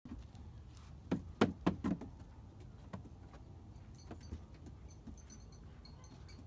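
Baby goat's hooves knocking on a hollow plastic playhouse and slide: a quick run of four knocks about a second in, then a few lighter ones.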